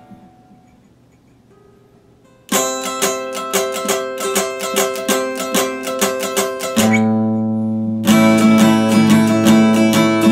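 Epiphone acoustic guitar. The playing breaks off, and after about two and a half seconds of quiet it resumes with a steady run of plucked notes, several a second. About halfway through, a chord is struck and left ringing for a second, then the picking carries on.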